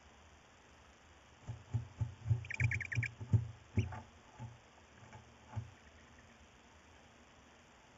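Barn owl chicks scuffling in a nest box over prey: a run of dull thumps and bumps against the box, with a quick burst of about six high squeaks about two and a half seconds in.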